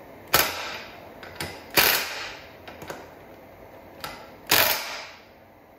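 Wrench on a mini bike's front axle castle nut giving sharp metallic clicks, three loud ones spread over a few seconds with fainter ones between, as the nut is snugged to line its slots up for the cotter pin.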